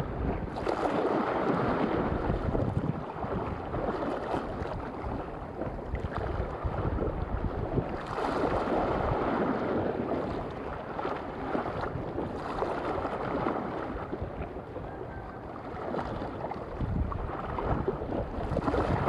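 Wind buffeting the microphone over choppy sea water, with waves washing in swells that rise and fall every few seconds.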